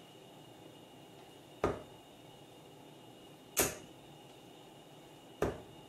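Three darts, 18-gram darts fitted with steel-tip conversion points, striking a bristle dartboard one after another, each landing as a short sharp thud about two seconds apart.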